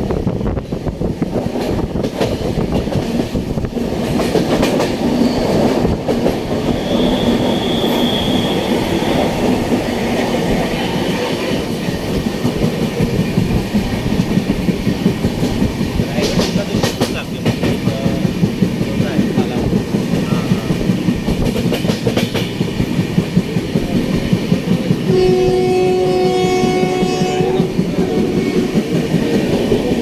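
Train running on the rails with a steady rumble and a rhythmic clickety-clack of wheels over rail joints. Near the end a train horn sounds for about two and a half seconds.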